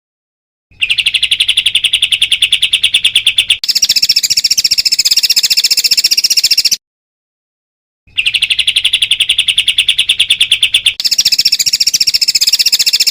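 A songbird singing a very rapid trill: a lower series of repeated notes that switches abruptly to a higher series, then breaks off. After a short gap the same phrase plays again unchanged, as a looped song recording.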